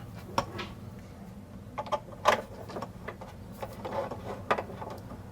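A few light, irregular clicks and taps from handling an HDMI cable and its plug at the back of a TV, over a low steady hum.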